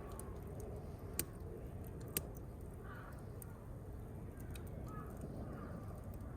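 Campfire burning with a steady low rush and scattered crackles, two sharp pops about a second and two seconds in.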